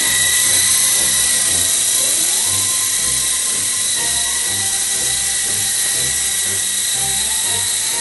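Small electric motors and rotors of a toy radio-controlled helicopter in flight, a steady high-pitched whine over a whirring hiss, with a low regular pulsing underneath.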